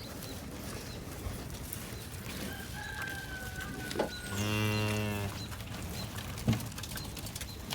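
A mother cow gives one low moo, about a second long, a little past halfway through, calling to her newborn calf.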